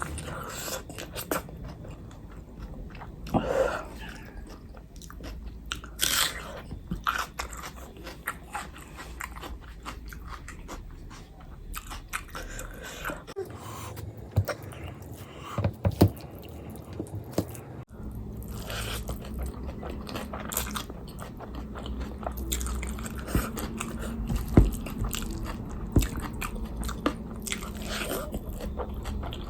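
Close-miked eating: chewing and biting with wet mouth smacks and occasional crunches.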